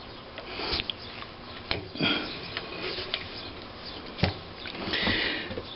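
Hands handling the governor flyweight parts on the flywheel hub of a McCormick-Deering Type M engine: scattered light metal clicks and rubbing, a sharp click about four seconds in, and short rustles around two and five seconds.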